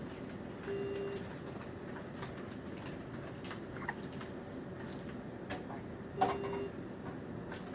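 Hiccups every few seconds, each a short high squeak or a brief soft steady hum.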